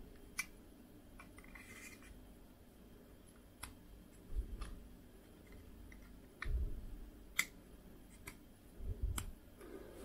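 Small plastic camera (RunCam 2) being handled by hand: scattered light clicks of its plastic parts, with a few dull thumps of handling about halfway through and near the end.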